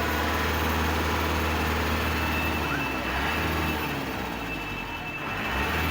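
A vehicle engine running with a steady low hum over general street noise, easing slightly about four to five seconds in.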